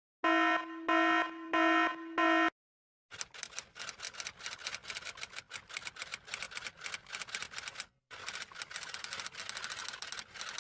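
Four short electronic beeps on one steady tone, then a long run of rapid clicks like fast typing on keys, pausing briefly about eight seconds in.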